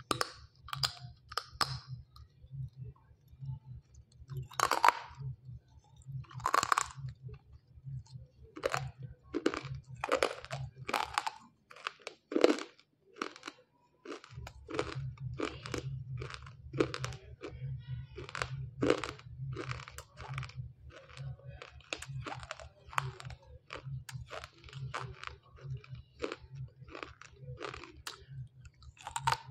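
Roasted multani mitti (fuller's earth clay) being bitten and chewed close to the mouth: a run of dry, sharp crunches, about one to two a second. The baked clay is very hard and crunchy.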